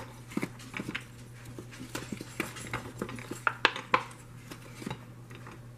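Hardened chocolate peanut clusters being pushed out of a flexible silicone mold and dropping onto a ceramic plate, making a string of irregular light clicks and taps.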